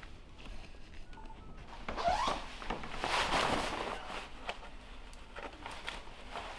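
Footsteps and clothing rustle in a small room, with one short rising tone about two seconds in.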